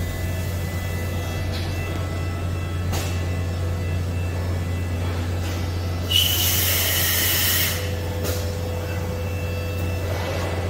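Mazak Variaxis i-300 AWC five-axis machining center running with a steady low hum. About six seconds in, a loud hiss lasts about a second and a half.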